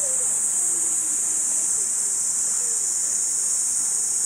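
Steady high-pitched buzz of a summer cicada chorus, running on without a break, with faint distant voices beneath it.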